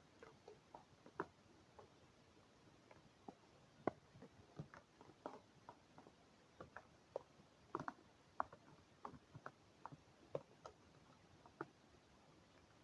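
Eating sounds: scattered faint clicks and taps of a utensil against a takeaway food container, irregular, at times several a second, stopping about a second before the end.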